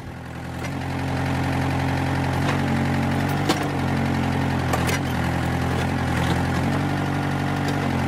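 Ford 555 backhoe's diesel engine running steadily under hydraulic load, its revs coming up over the first second as the boom and bucket dig beside the tree to break its roots. A few short sharp knocks about two and a half, three and a half and five seconds in.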